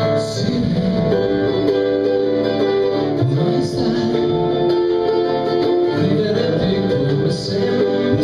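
Small band playing live: acoustic-electric guitar, keyboard holding long chords, bass and drum kit. A cymbal crash comes roughly every three to four seconds.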